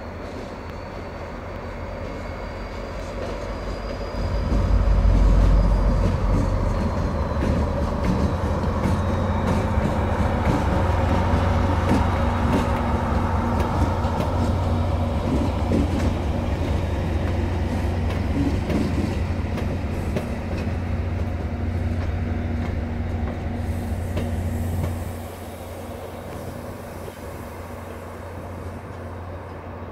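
Train running past: a deep rumble swells about four seconds in, holds steady, and drops off sharply about 25 seconds in.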